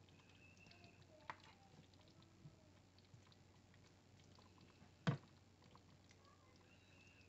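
Quiet stew-scooping: a serving spoon moves through thick stew in a crock-pot and knocks lightly against the pot and bowl, a couple of soft clicks and one sharper knock about five seconds in.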